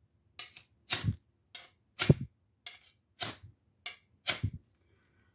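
Ferro rod scraped repeatedly with a high-carbon steel butcher knife: about eight short, sharp scrapes, roughly two a second, stopping near the end.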